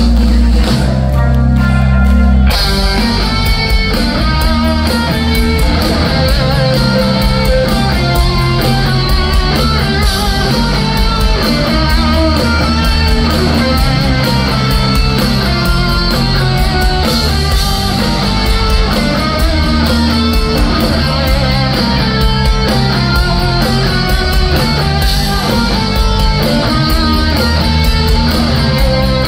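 Heavy metal band playing live, with distorted electric guitars, bass and drums. A low chord is held for about the first two seconds, then fast riffing with the drums runs on.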